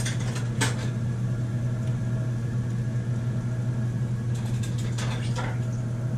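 Steady low electrical hum, like a motor or appliance running, at one unchanging pitch. Over it come a few light clicks and clinks, one just under a second in and a small cluster about five seconds in, as items are handled on the counter.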